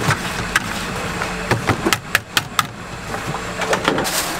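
Wire whisk knocking and scraping against a plastic bowl of batter, with a run of sharp clicks in the middle, over a steady low hum. Near the end, a plastic bag of raw chicken rustles as it is handled.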